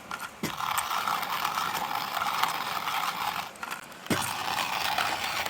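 Hand-cranked Soulhand coffee grinder grinding coffee beans: a continuous crunching, ratcheting rasp as the crank turns, broken by two short pauses, one at the very start and one at about four seconds.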